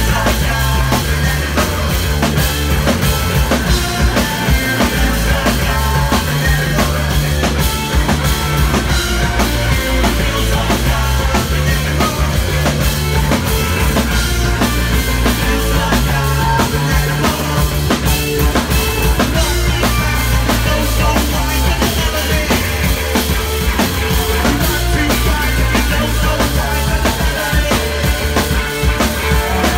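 A live rock band playing loud: a driving drum kit with bass guitar and electric guitar, the bass line stepping between notes.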